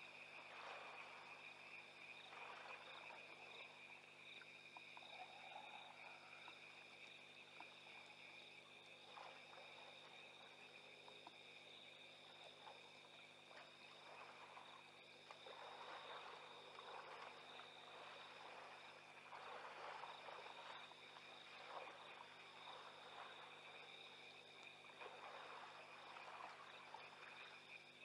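Faint night chorus at a waterhole. Insects and frogs trill steadily at a high pitch, and one call pulses about once a second. Soft, irregular splashing or swishing comes and goes.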